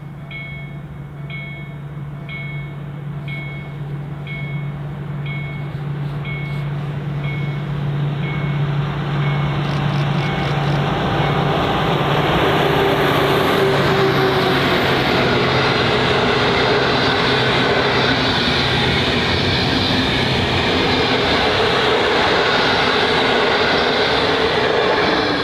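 A 6Dg diesel locomotive approaches with a steady low engine drone that grows louder. It then passes close, hauling the unpowered EP07 electric locomotive and a rake of Intercity coaches. From about halfway on, the rolling wheels and coaches make a loud, steady rush.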